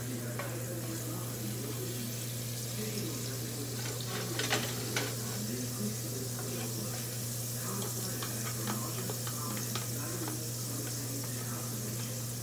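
Garlic frying in butter in a nonstick pan: a steady sizzle, with a utensil stirring and scraping against the pan and a few sharp clicks about four to five seconds in. A steady low hum runs underneath.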